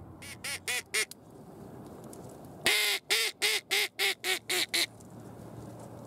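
Mouth-blown duck call sounding quacks: a short run of about four quacks, then, about a second and a half later, a long loud quack followed by about seven quick, evenly spaced quacks that taper off.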